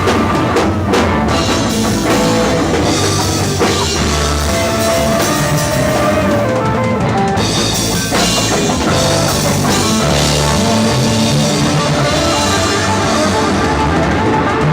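A band playing rock-style music, with drum kit, bass and guitar, loud and continuous.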